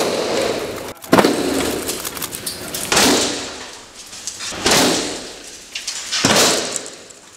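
Four heavy impacts, roughly every second and a half to two seconds, each fading away over about a second, as cricket-ball-sized synthetic ice hailstones strike a skylight's glass pane and burst apart. The glass does not break.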